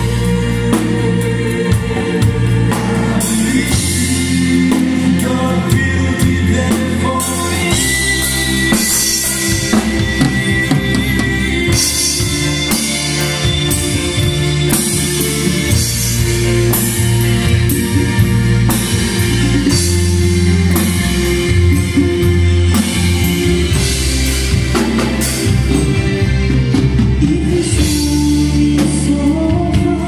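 A live band playing a song: voices singing over electronic keyboards and a drum kit with a steady beat.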